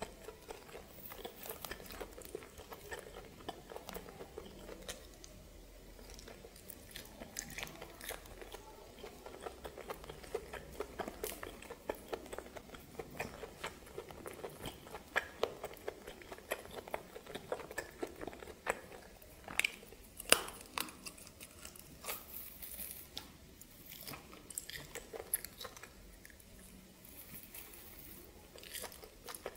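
Close-miked eating sounds of steamed snake: chewing and biting, with many small clicks and crackles as the snake's skin and bones are pulled apart by hand. The sharpest clicks come a little past the middle.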